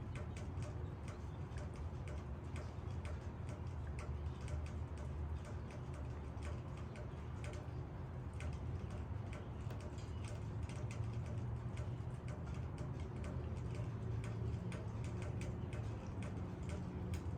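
Rain falling steadily, with many irregular drops ticking sharply on leaves over a low, steady rumble.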